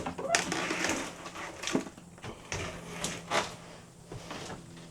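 Knocks and scraping of flimsy particleboard cabinet parts being pulled apart and handled, with a few sharp knocks about a second and a half apart.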